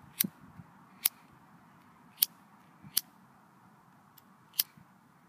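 Five sharp, irregularly spaced clicks from an aluminium drink can being handled in a clear plastic tub.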